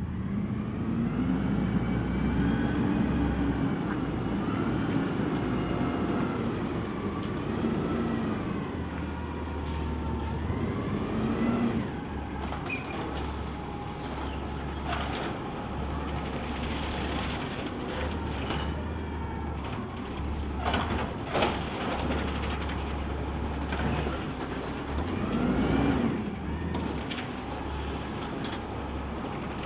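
Garbage truck's diesel engine revving up and down, with a few sharp knocks about two-thirds of the way through.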